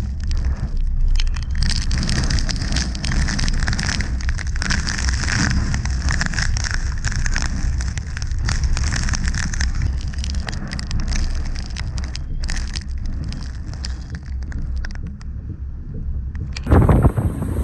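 Hurricane-force wind buffeting the microphone with a heavy low rumble, mixed with a dense crackle of driving rain spattering on and around it. Just before the end the sound changes abruptly to a louder wind rumble.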